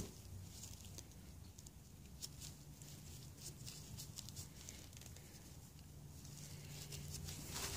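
Faint scattered small clicks and rubbing of gloved hands greasing and handling a small rubber water-pump grommet, over a low steady hum.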